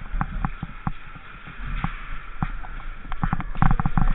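A string of irregular sharp clicks and knocks, bunched closely together near the end, over a steady low rumble.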